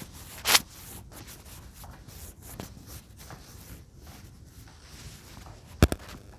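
Rubbing and rustling handling noise from a handheld phone carried through a room, with scattered soft clicks. Two sharp knocks stand out, one about half a second in and one near the end.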